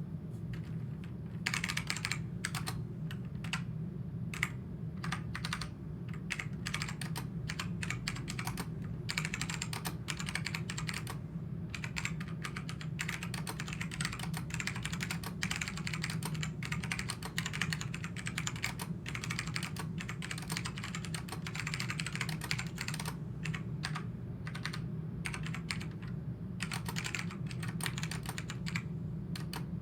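Typing on an SMK-8851 keyboard with black-stemmed Hua Jie tactile switches: a fast, irregular stream of key clicks and clacks over a low steady hum.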